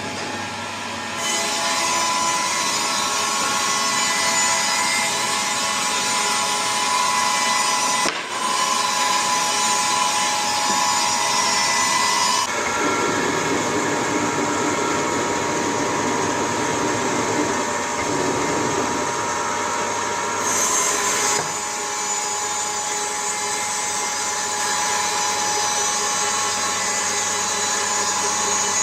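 Sawmill running and cutting through wood: a loud, steady machine whine with a noisy cutting sound, which changes character several times as the cut goes on.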